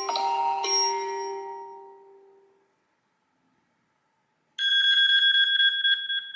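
The end of one classic iPhone ringtone, a chiming mallet melody, dies away in the first two seconds. After a short silence, another classic iPhone ringtone starts about four and a half seconds in: a loud, high electronic ring that pulses rapidly.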